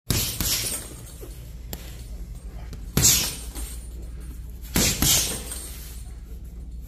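Boxing-glove punches thudding into a hanging Ringside heavy bag: a hard hit at the start, a lighter one, a hard hit about three seconds in and a quick pair of hits near five seconds in, the hard ones each followed by a short hiss.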